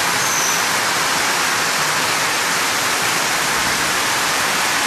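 Floodwater rushing down a parking-garage ramp and pouring into the flooded garage: a loud, steady rush of water.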